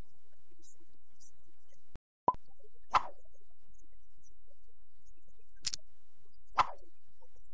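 Short pop and click sound effects for the animated graphics, four in all: one about two seconds in, another a second later, and two near the end, over a low steady hum.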